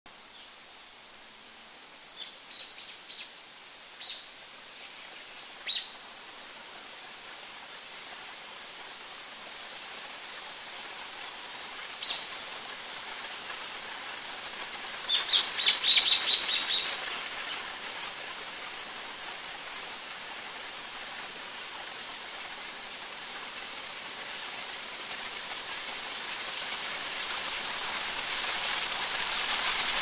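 Rose-ringed parakeet chirping in short, high calls scattered through, with a quick run of loud chirps about halfway that is the loudest part. A steady hiss grows louder toward the end.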